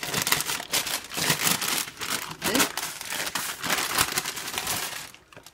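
Baking paper crinkling and rustling as it is peeled off a slab of soft butter, in irregular crackles that die away near the end.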